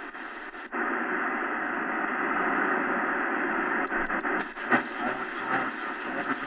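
Shortwave static and hiss from the XHDATA D-901 portable radio's speaker while it is tuned across the 40-metre amateur band. The hiss is faint at first, grows louder about a second in, and has a few crackles around the middle.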